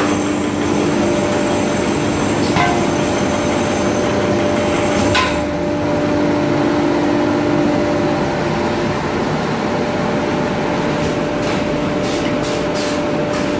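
Automatic twist brush machine running: steady mechanical clatter with a hum, and a few sharp clicks at about 2.5 and 5 seconds and several more near the end.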